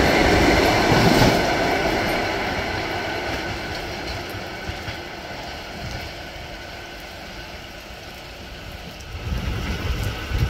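Passenger train coaches running past at speed, wheels rolling on the rails, the sound fading steadily as the train moves away. About nine seconds in, low bumps on the microphone.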